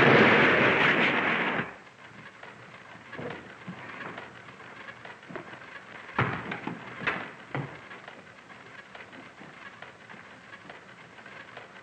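Loud crash and rattle of a sawn-apart car collapsing onto a wooden shop floor, cutting off abruptly about one and a half seconds in, followed by a few scattered clunks and knocks over a faint hiss.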